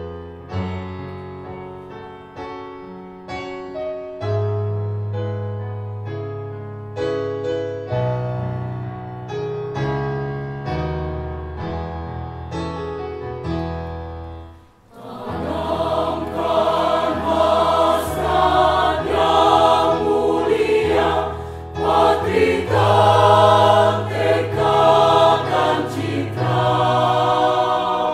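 Piano introduction of separate struck chords that ring and fade, then a mixed choir of men's and women's voices enters about halfway through, singing a hymn in full harmony over the piano.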